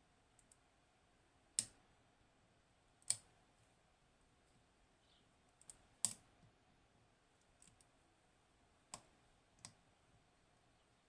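Sharp, irregular clicks from picking a Hori Trident high pin count lock: the pick and tension tool working the pin stacks. There are five louder clicks spread over the stretch and a few fainter ticks between them.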